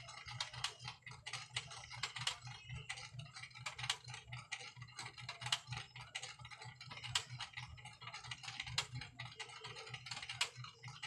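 Rapid, irregular clicking and tapping, several clicks a second, like typing, over a steady low hum.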